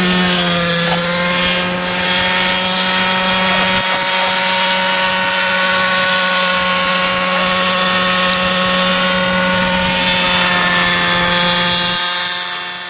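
Unmanned model helicopter flying overhead: its engine and rotors make a steady, many-toned whine, fading out near the end.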